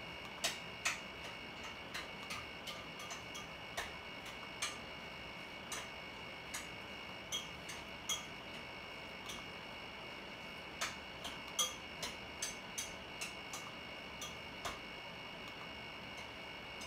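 Faint, irregularly spaced clicks and ticks, a few per second, over a steady high-pitched electrical whine.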